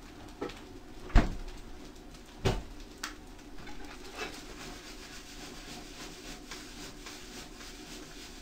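Kitchen clatter at a gas stove during stir-frying: a few sharp knocks, the loudest about a second in, then lighter clinks of a utensil against a frying pan over a faint steady hiss.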